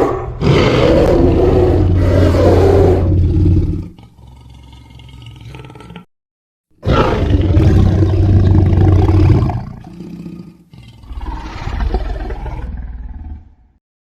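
Designed monster roars layered from lion and dinosaur roar sound effects: three deep roars, the first two long and trailing off, with a brief silence between the first and second.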